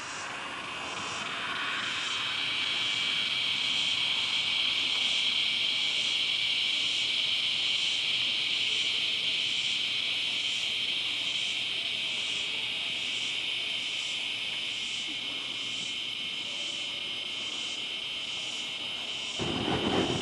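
Chorus of insects: a steady high chirring drone with a fainter pulsing call repeating about twice a second. About a second before the end it switches abruptly to wind-like outdoor noise.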